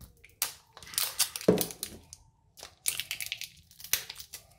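Crinkling and tearing of an LOL Surprise ball's outer wrapper as it is peeled off by hand, in several crackly bursts, with a dull knock about one and a half seconds in.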